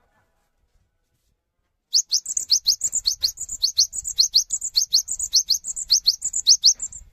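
Cinereous tit (gelatik batu) singing. After about two seconds of quiet it gives a loud, fast run of short rising high notes, about four a second, which stops near the end.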